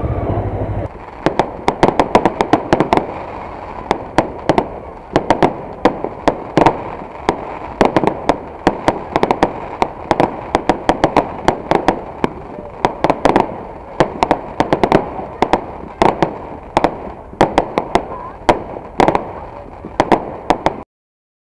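About a second of the Honda CB500S's parallel-twin engine running, then a fireworks display: dense, irregular cracks and bangs, several a second, over a steady background haze. It cuts off abruptly near the end.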